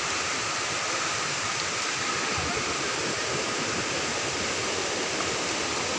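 Steady, even rush of falling water, with no break or change.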